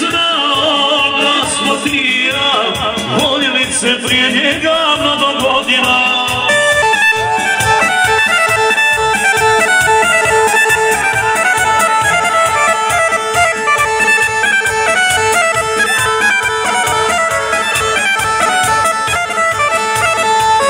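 Loud band music: a voice sings over the band for about the first six seconds, then an instrumental stretch follows with a steady drum beat under a held, reedy lead melody.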